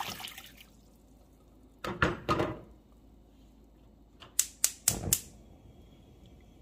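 The last splash of water poured into a stainless-steel pot of cut potatoes, then a short clatter of kitchenware set down about two seconds in. A little past the middle, a quick run of about five sharp clicks from the gas burner's igniter.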